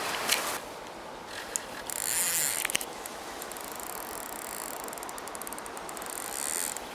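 Fishing reel's click ratchet ticking in quick runs as line is wound or drawn, over a steady rush of flowing river water.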